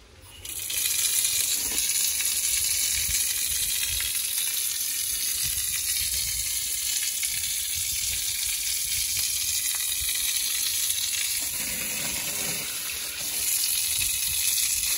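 Water gushing from a wall-mounted tap turned on about half a second in and splashing onto a tiled floor in a steady, loud hiss. The sound changes and grows a little louder near the end as a hand is put into the stream.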